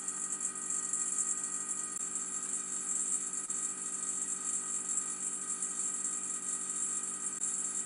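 Vacuum pump running steadily as it draws the air out of a glass dome to make a partial vacuum: an even mechanical hum of several steady tones with a high whine, heard through a video's playback.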